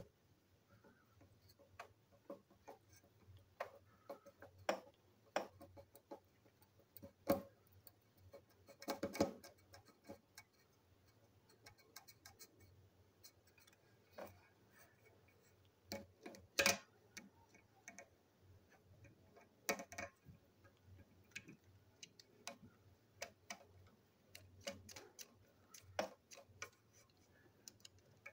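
Irregular small clicks and plastic knocks from a small screwdriver working on a toy locomotive's plastic chassis, and the parts being handled. A few louder knocks stand out, one about seven seconds in, a cluster around nine seconds and another around seventeen seconds.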